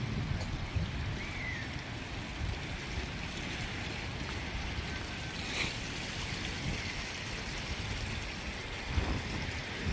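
Small bubbler fountain jets splashing into a shallow paved pool: a steady watery hiss, with wind rumbling on the microphone.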